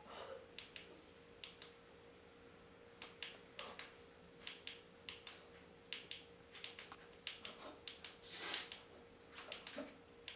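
Scattered sharp clicks at an uneven pace, with a short louder hiss about eight and a half seconds in.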